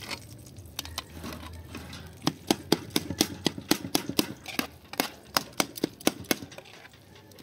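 Metal ladle stirring a pot of stew, clinking and knocking against the pot in quick repeated strokes, about four or five a second, starting about two seconds in.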